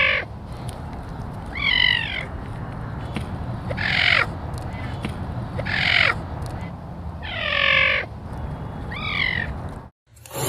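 A cat repeating a short, bird-like call about every two seconds, six times, each call dropping in pitch, over a steady low hum.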